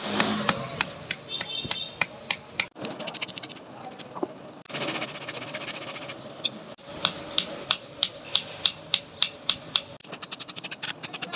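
Hammer tapping steel pins against an anvil to peen them over and rivet the wooden handle scales onto the knife. The taps come about three a second, with a short scraping noise partway through and quicker, lighter taps near the end.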